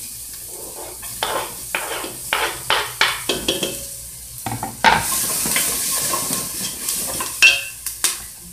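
Chopped garlic and onion sizzling in hot oil in an aluminium pot, stirred with a wooden spoon that knocks and scrapes against the pot. A run of quick knocks comes in the first few seconds, then the sizzling grows brighter about five seconds in, with a few more sharp knocks near the end.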